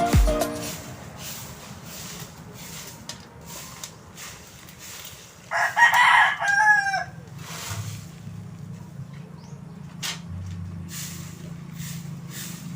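A rooster crows once, about five and a half seconds in, in a call lasting under two seconds. Faint, repeated short scratching strokes run underneath it.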